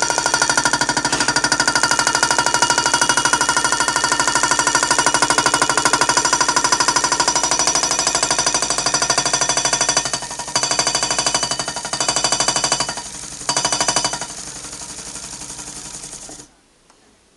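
Homemade thermoacoustic hot-air engine running: a loud, fast, even rattle with a ringing tone over it. It falters twice, runs quieter for a couple of seconds, then cuts off abruptly a second before the end.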